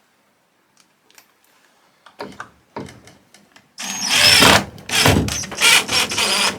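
A few light clicks, then from about four seconds in a power drill runs in short bursts, driving a screw through a rope loop and washers into a wooden door.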